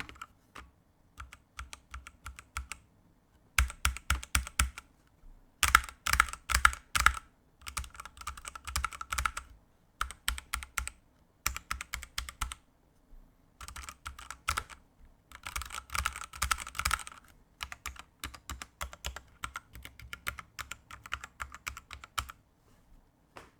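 Typing on a Ducky One 2 Mini 60% mechanical keyboard fitted with Kailh Pro Burgundy switches with rubber O-ring dampers: runs of quick keystrokes broken by short pauses.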